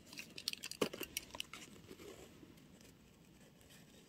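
Scissors snipping through tape-covered paper, with crinkling as the laminated cutout is handled: a quick run of crisp snips and crackles in the first second and a half, then quieter.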